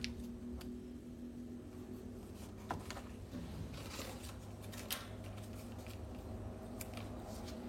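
A few faint, sharp clicks and light handling noise over a steady low hum.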